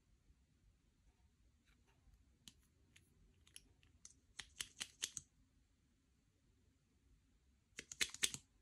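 Slime being pressed and worked by hand, its trapped air popping in small sharp clicks. The clicks come scattered at first, then in two quick clusters, one a little before the middle and one near the end.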